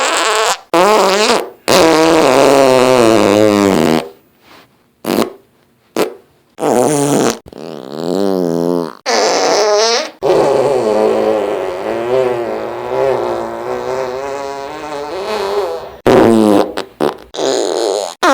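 A string of fart sound effects, one after another. Some are short and some last a second or two, each with a wavering pitch, and a long wavering fart of about six seconds comes near the middle.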